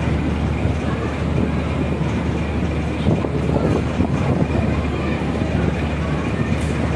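Steady low rumble of a ship's engine, with wind noise over it.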